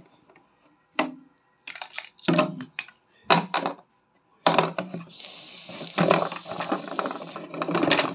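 Plastic toy fruit knocking and clattering against a large clear plastic jar as it is dropped in, then a few seconds of continuous rattling in the second half.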